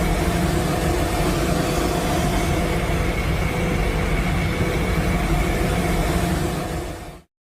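A steady, dense rumbling sound effect with a few faint held tones running through it, fading out about seven seconds in to silence.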